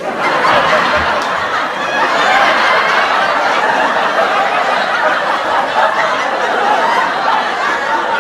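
Sitcom studio audience laughter, a crowd laughing together, starting at once and running on at a steady level.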